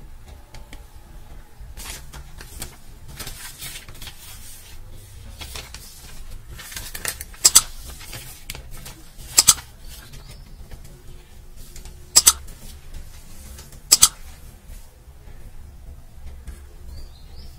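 Thin backing paper of silver-leaf (varak) sheets rustling as the leaf is pressed onto a tray of barfi. After the softer rustling come four short, sharp double snaps, a couple of seconds apart.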